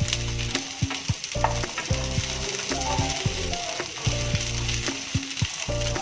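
Mixed vegetables (carrots, beans and fresh peas) sizzling as they fry in oil in a pan, stirred with a spatula that clicks and scrapes against the pan now and then.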